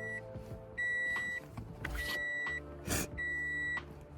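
Car warning chime beeping at an even pace, about once every 1.2 seconds, each beep a little over half a second long, with a couple of soft knocks in between.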